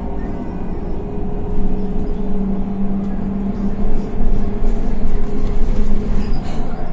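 Higer KLQ6129GQ2 diesel city bus driving along, heard from inside the passenger cabin: a steady engine and drivetrain drone, with a few light rattles near the end.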